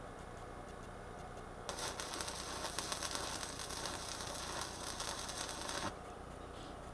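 Electric arc welding a stack of steel plates and file pieces together: the arc crackles and sizzles for about four seconds, starting abruptly about two seconds in and cutting off sharply.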